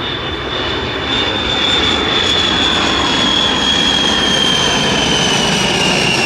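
Aircraft engine roar from a plane flying past overhead, with a high whine that slowly falls in pitch as it goes by. The roar grows louder about a second in.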